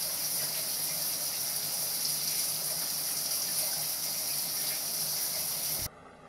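Steady hissing rush of falling water, with droplets coming down on a cat, cutting off abruptly near the end.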